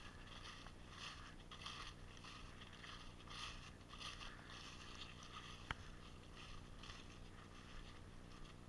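Footsteps crunching through dry leaf litter on a woodland trail, about two steps a second, muffled by the action camera's plastic housing. One sharp click sounds a little before six seconds in.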